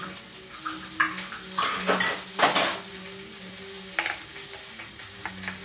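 Kitchen clatter: metal utensils and cookware clinking and knocking a few times, the loudest about two and a half seconds in, over a steady sizzle of food frying in a pan.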